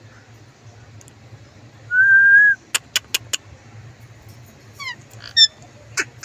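Indian ringneck parakeet whistling one steady note for about half a second, about two seconds in, followed by a few sharp clicks and short chirps near the end.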